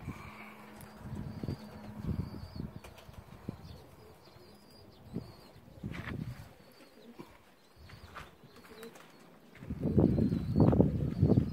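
Pigeons' wings flapping in flight, a rough flutter that grows loudest near the end, with faint high bird chirps above it.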